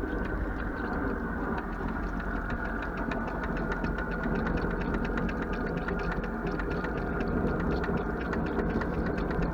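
Kirovets tractor's fuel priming pump running steadily with a fast, even ticking, pumping diesel through to bleed air out of the fuel system.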